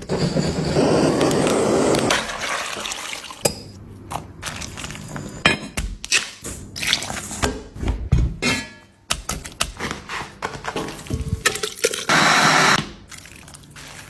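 Food-preparation sounds: a couple of seconds of pouring or rustling, then scattered clicks and knocks of utensils and containers, and another short pour about twelve seconds in.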